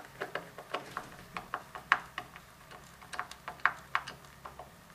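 Wood screw being driven by hand with a screwdriver into a wooden sled runner: a string of irregular small clicks and creaks as the driver is turned and regripped.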